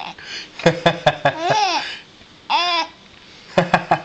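Baby cooing and babbling in high-pitched rising-and-falling sounds. There are two longer coos, one about a second and a half in and one about two and a half seconds in. Between them come quick runs of short clipped sounds.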